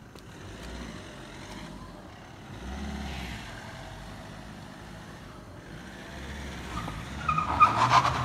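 Car engine and tyres on the road, growing louder near the end as a police car drives past.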